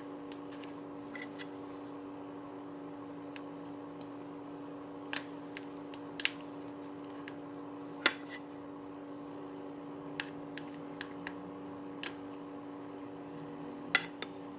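A plastic rice paddle taps and scrapes against a pot and a small plastic container, making scattered sharp clicks and knocks, the sharpest about eight seconds in and near the end. A steady low hum runs underneath.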